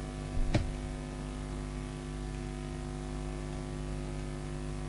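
Steady electrical hum with a hiss over it, the background noise of the classroom recording system, with one brief faint noise about half a second in.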